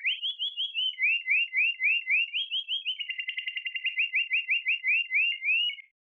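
Synthesized bird tweet from Native Instruments Absynth 5: a looping pitch envelope repeats short rising chirps about five a second, with the volume ducked between them so each tweet restarts rather than sweeping like a siren. The pitch and spacing shift as it plays, with a fast fluttering stretch about three seconds in, and it cuts off abruptly near the end.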